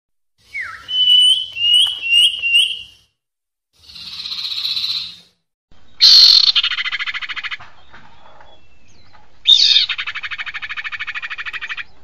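Female common iora (sirpu) lure calls played from a recording: four short rising chirps, a hissing note, then two long, loud, rapid rattling trills.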